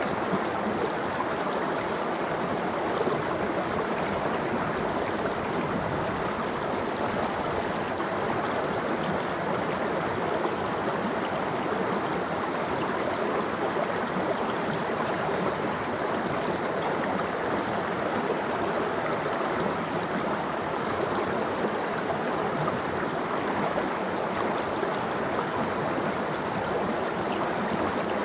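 Mountain stream of cold water flowing steadily over rocks, an even rushing and gurgling.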